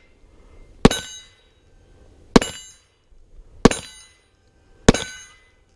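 Four pistol shots, evenly paced about a second and a quarter apart. Each is followed by the metallic ring of a struck steel plate.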